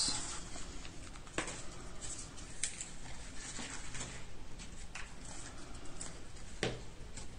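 Small cardstock boxes being handled and pressed together with adhesive: faint rustling of paper with a few light taps and clicks.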